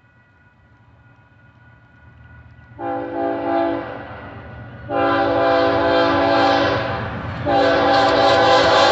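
BNSF diesel locomotive's air horn blowing a multi-note chord: a short blast about three seconds in, then two long blasts, the last one still sounding at the end. Underneath, the low rumble of the approaching locomotives grows louder.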